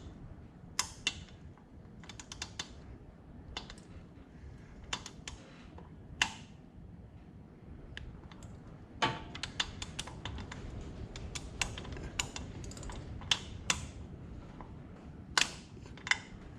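Torque wrench working the breather screws: irregular sharp metal clicks and ticks from the ratchet and socket, coming more often in the second half.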